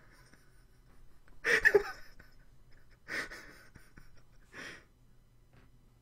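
A man laughing in three short, breathy, wheezing bursts, about a second and a half apart, the first the loudest.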